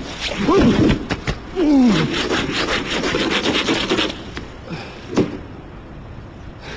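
Quick, rhythmic rasping scrapes of a tool on a snow-covered car, running for about two seconds. Just before them comes a man's strained groans.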